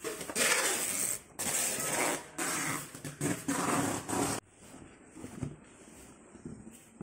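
Adhesive tape being pulled off the roll in five loud, harsh strips, each up to about a second long, while a cardboard box is taped shut. After about four and a half seconds it gives way to quieter rustling of cardboard being handled.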